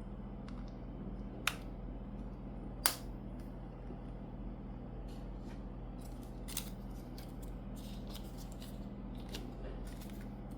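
Small hard-plastic clicks and snaps from the earbuds and their case being handled: two sharp snaps about a second and a half and three seconds in, then a run of lighter clicks, over a steady low hum.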